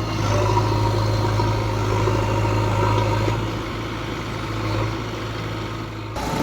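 Diesel engine of heavy earthmoving machinery running steadily, a constant low drone with mechanical clatter over it; it breaks off abruptly near the end.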